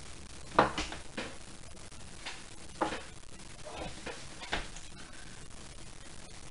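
Someone eating baby food off a metal spoon from a small glass jar: a few short, sharp sounds spread over the first four and a half seconds, the loudest about half a second in.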